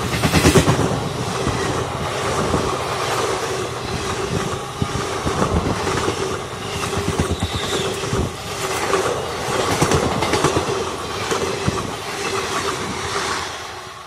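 Express passenger coaches passing close by at speed, their wheels clattering rhythmically over the rail joints. The sound falls away sharply near the end as the last coach goes by and recedes.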